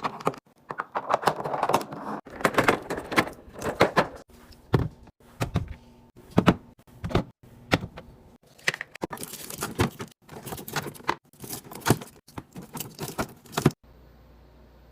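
Items being stocked into a fridge: a quick, irregular series of clicks, clacks and knocks of containers and packages being set down, with bursts of packaging rustle. It stops abruptly near the end.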